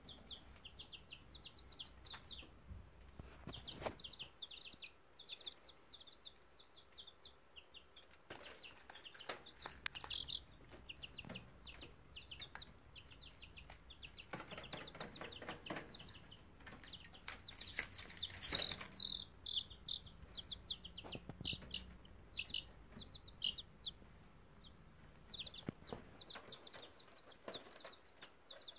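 A brood of baby chicks peeping continuously in rapid short, high chirps, with a few louder taps and knocks in between.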